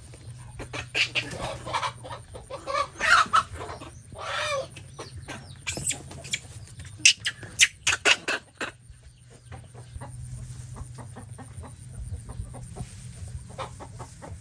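Hen clucking in quick runs of short, sharp calls with one longer call in between, then falling quieter after about nine seconds: the agitated clucks of a hen with chicks being bothered by a monkey.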